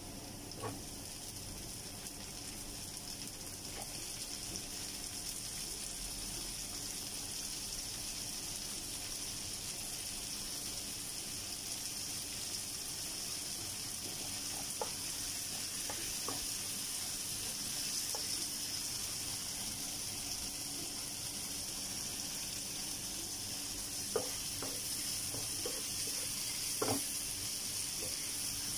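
Chopped onion and diced tomato sizzling in oil in a nonstick frying pan, a steady hiss, with a few light taps of a wooden spoon against the pan as it is stirred.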